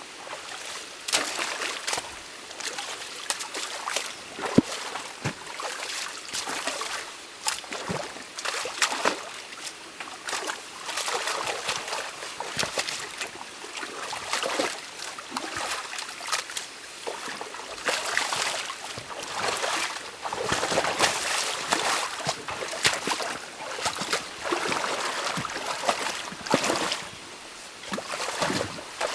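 Stream water running and trickling through a beaver dam being opened by hand, with many irregular sharp splashes and knocks as dam material is pulled apart in the water.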